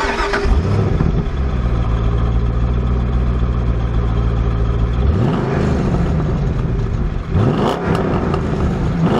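Chevrolet Corvette C5 Z06's 5.7-litre LS6 V8 running through its factory titanium exhaust, idling steadily, then revved twice, about halfway through and again near the end, the pitch rising and falling each time.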